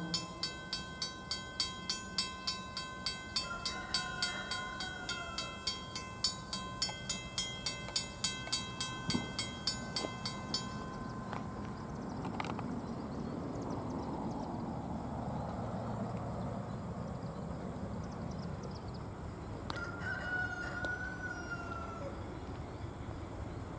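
A grade-crossing bell rings rapidly, about two and a half strikes a second, then stops about ten seconds in. A rooster crows twice, and the low rumble of an approaching diesel train builds through the second half.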